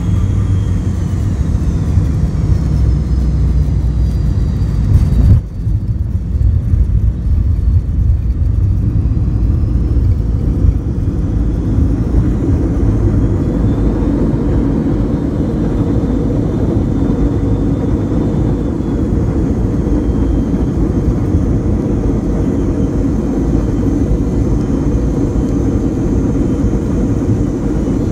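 McDonnell Douglas MD-88 heard from the cabin while landing, its rear-mounted Pratt & Whitney JT8D engines running steadily with a faint high whine. About five seconds in there is a sudden brief break. After it comes a heavier, steady rumble of the landing roll, with the ground spoilers up.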